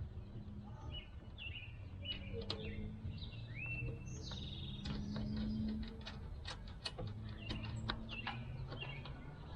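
Birds chirping and trilling in the background, with scattered small clicks and taps from a screwdriver and small bolts being threaded by hand.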